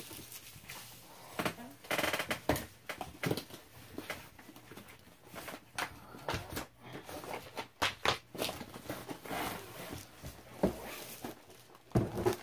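Long cardboard box being handled on a wooden table: a run of irregular knocks, taps and scrapes as it is opened and a rolled diamond-painting canvas is slid out, the box bumping the table hard enough to shake it.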